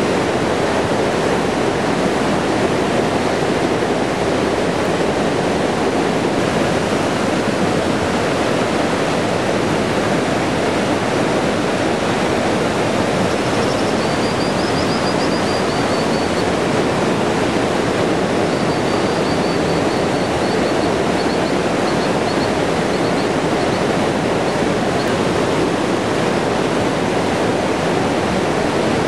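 Whitewater of a fast mountain river rushing steadily. Over it, two runs of faint, high twittering from American dippers come through around the middle.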